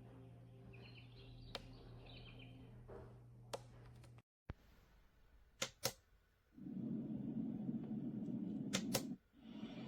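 A sunrise alarm clock's sound machine plays through its small speaker while its sounds are switched. A track of high chirps over a steady hum cuts off about four seconds in. A few sharp button clicks follow, then a steady rushing noise track starts, drops out briefly near the end and resumes.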